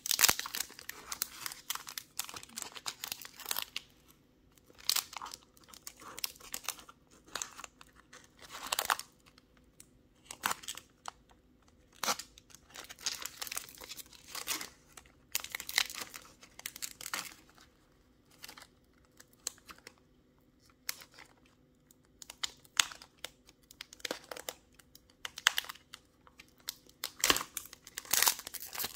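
Foil booster-pack wrapper of Pokémon cards being torn open and crinkled by hand: irregular crackles and short rips, with brief pauses between, loudest just at the start and near the end.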